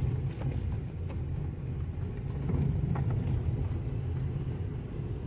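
Mitsubishi Colt driven slowly over a rough dirt track, heard from inside the cabin: a steady low rumble from the engine and tyres, with a few light clicks and knocks.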